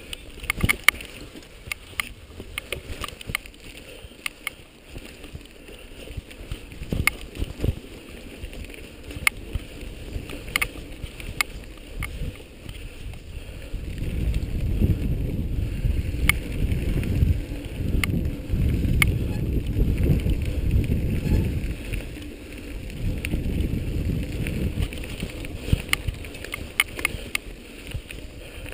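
Mountain bike rattling and clicking as it rolls over a rough dirt trail, with a louder low rumble from about halfway in until near the end.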